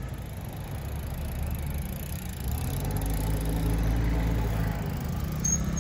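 A motor vehicle's engine running close by, a low steady hum that grows louder about halfway through.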